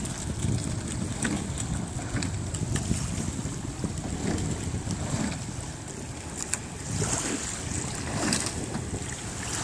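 Wind buffeting the microphone in a low rumble over water noise, with scattered light clicks and splashes as a quadruple scull rows past close by.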